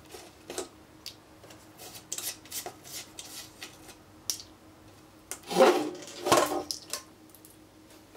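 Metal panel and chassis of a Bentley Nevada 5000 Series vibration monitor being handled on a steel workbench: light clicks and rubs, then two louder metallic scrapes and clatters about five and a half and six and a half seconds in.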